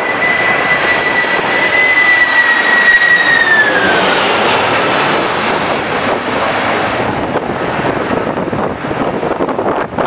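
Jet airliner passing close by as it comes in to land, the engine whine holding steady and then dropping in pitch a few seconds in as it goes past, over a loud rush of jet noise.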